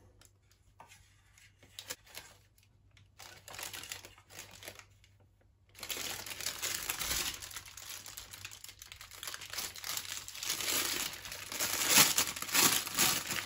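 Disposable plastic piping bag crinkling as it is handled and filled with spoonfuls of melted white chocolate. A few short rustles in the first half, then steady crinkling from about halfway, loudest near the end.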